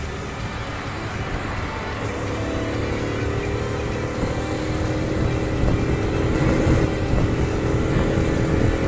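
Honda Super Cub 50's small single-cylinder four-stroke engine running on the move, under heavy wind buffeting on the microphone. The engine's steady note comes through from about two seconds in and grows louder.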